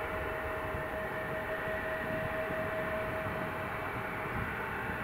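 Bombardier CRJ-900 regional jet's twin rear-mounted General Electric CF34 turbofans running at low taxi power: a steady whine over a low rumble as the jet taxis toward the runway.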